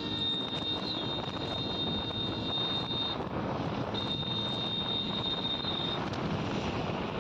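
Wind rushing over the microphone and road noise from a motorcycle riding at speed on a highway. A steady high-pitched tone sounds twice over it, for about three seconds and then for about two.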